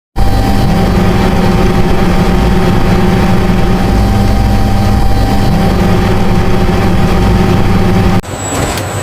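Loud, steady drone of running factory machinery with a thin steady whine above it. It starts suddenly, and about eight seconds in cuts abruptly to a quieter mechanical sound with a few sharp clicks.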